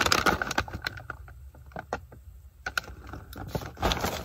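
Paper fast-food takeout bag crinkling and rustling as it is handled and opened: a run of sharp crackles, busiest in the first half second, then scattered crackles.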